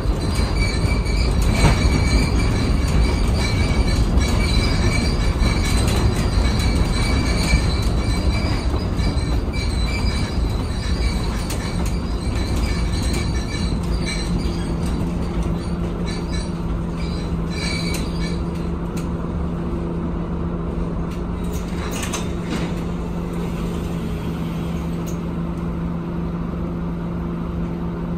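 Inside a Scania Citywide LFA articulated city bus: loud road and drivetrain rumble with a high whine while it moves. The rumble eases off as the bus slows, and from about halfway through a steady low engine hum carries on at standstill.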